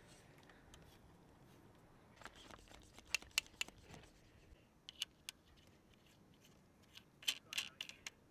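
Faint, sharp clicks and clinks of hand tools working on a mountain bike, coming in small scattered clusters a few seconds apart.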